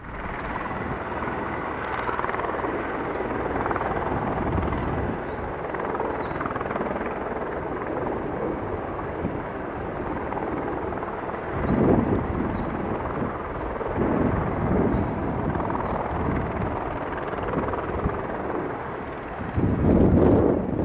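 Helicopter noise mixed with strong wind buffeting the microphone, with louder gusts about twelve seconds in and again near the end. A short high chirp recurs every few seconds.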